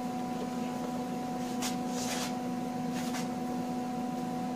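Steady electrical hum with fixed tones. Three short hissing noises come in the middle.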